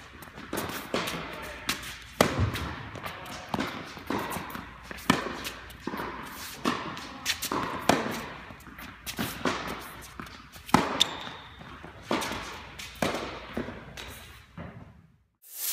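Tennis ball being struck back and forth by racquets and bouncing on an indoor court, a rally of sharp hits about one or two a second, each echoing in the hall; the sound cuts off about half a second before the end.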